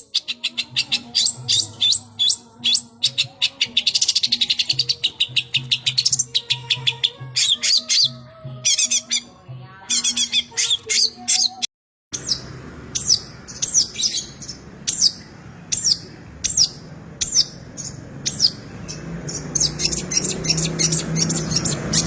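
Long-tailed shrike (cendet) singing vigorously: fast runs of sharp chirps and harsh squawky notes, several per second. The song is full of mimicked calls of other birds. The sound cuts out briefly about halfway through, and more background noise comes in near the end.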